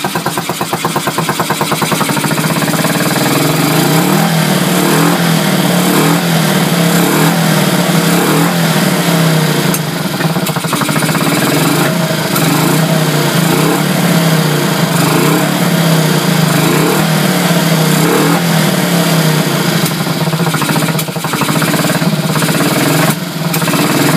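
1965 Honda CB77 Superhawk's 305 cc parallel-twin engine running and being revved again and again, its pitch rising and falling every second or so. When revved it runs on both cylinders.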